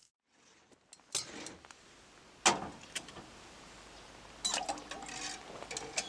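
Sharp metal clicks and clanks from handling a camp stove and a steel pot. There is a louder knock about two and a half seconds in and a quick run of clicks near the end.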